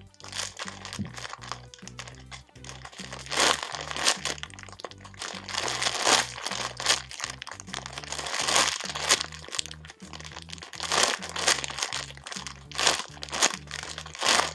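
Clear plastic bag crinkling and crackling in short bursts as a foam squishy is squeezed and turned inside it, over background music with a steady bass line.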